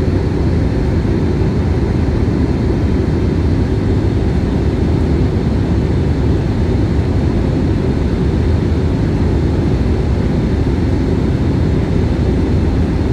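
Steady rumble of jet airliner cabin noise in flight: engine and airflow noise, deep and unchanging, with a faint steady whine above it.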